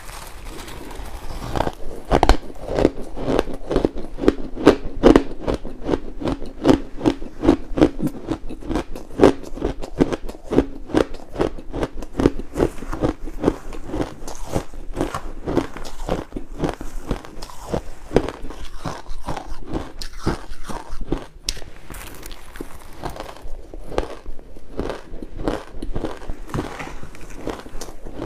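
Ice being bitten and chewed close to the microphone: a steady run of crisp crunches, several a second.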